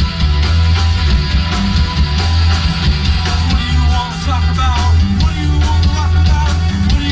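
Loud music with a heavy, steady bass line. About halfway through, a melody line that bends up and down in pitch comes in.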